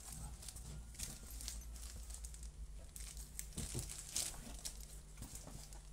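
Black fabric shoulder bag being handled and opened: soft rustling and crinkling with scattered light clicks as its flap and zip are worked.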